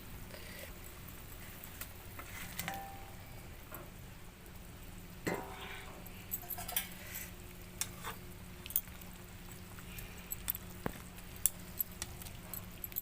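A metal spoon stirring curry in a cooking pan, with irregular clinks and scrapes of metal on metal against a faint sizzle of the simmering curry.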